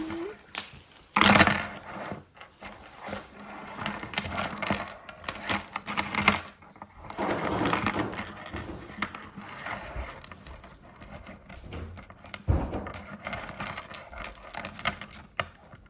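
3D-printed plastic toys clicking and clattering as they are knocked together in a mock fight, with many irregular taps and rattles and a louder clatter about a second in.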